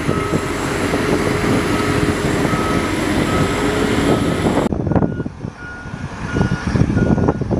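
Heavy military vehicle's engine running while its reversing alarm beeps over and over, about one and a half beeps a second. About two thirds of the way in the sound cuts abruptly to a quieter, more distant take where the reversing beeps go on, a little faster.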